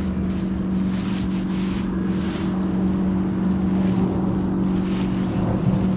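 A bass boat's motor humming steadily at one low pitch, with wind noise on the microphone and a few brief hissing gusts in the first half.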